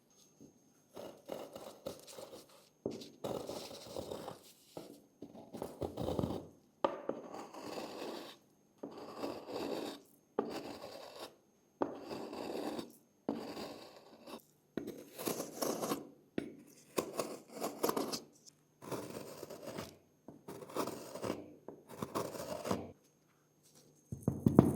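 Hand tools scraping and rubbing against a small die-cast model part, in more than a dozen short clips of a second or two, each starting and stopping abruptly.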